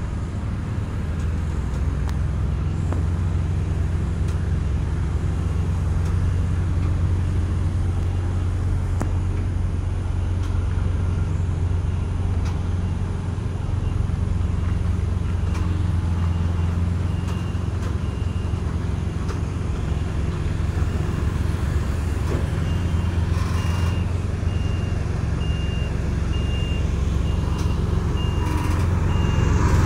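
Heavy truck diesel engines running in a low, steady drone as a multi-axle heavy-haul trailer rolls slowly past, growing louder near the end as the truck comes close. From about two-thirds in, an electronic warning beeper sounds over and over, roughly one and a half high beeps a second.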